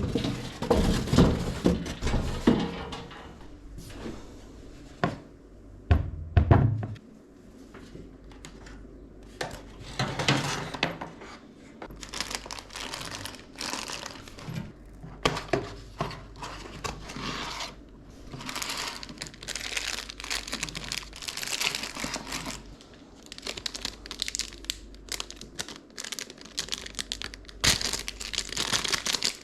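Packaging crinkling and rustling as it is handled, with several knocks and thuds in the first few seconds and again about six seconds in.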